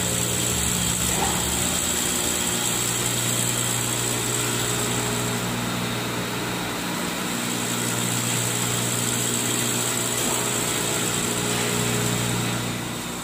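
Glass straight-line edging machine running steadily as it grinds and polishes the edge of a 6 mm mirror: a constant motor hum with a high, steady whine over the grinding noise.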